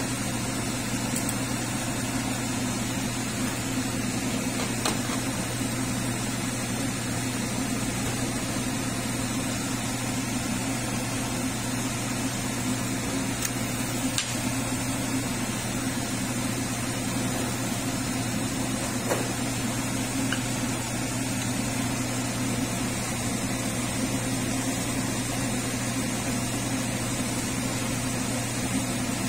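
Steady hum of a kitchen extractor fan running over the stove, with a few faint clicks now and then.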